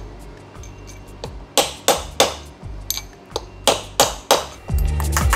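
A two-pound hammer tapping on a 3/8-inch socket extension used as a drift, driving a gear down onto a Honda K-series 5-speed transmission shaft in place of a press: about five sharp, ringing metal-on-metal taps roughly half a second to a second apart. Background music comes in near the end.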